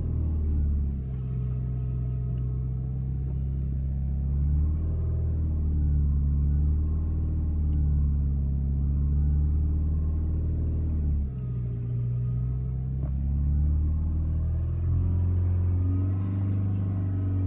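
Audi A4 B8 engine and drivetrain running with a steady low drone and a set of tones that drift slightly up and down in pitch: the strange sound that appeared after a clutch replacement.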